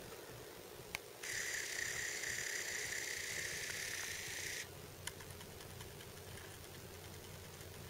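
Camera lens motor whirring steadily for about three and a half seconds, with a click just before it starts and another shortly after it stops, as the camera hunts for focus.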